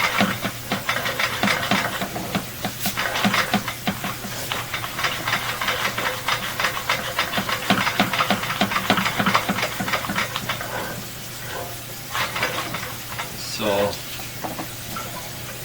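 Dense crackling and scraping heard through a sewer inspection camera inside a drain pipe, easing off after about ten seconds, over a steady low electrical hum.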